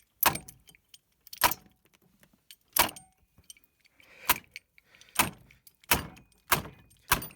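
A Belkin router being smashed: eight hard blows, each with a short rattle, coming faster toward the end.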